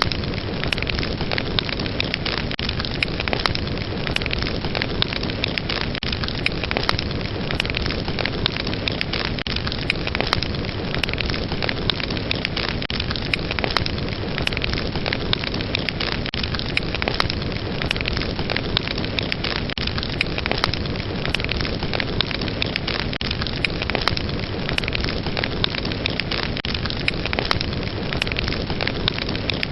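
Fire burning steadily, with a continuous rushing hiss and frequent, irregular sharp crackles and pops.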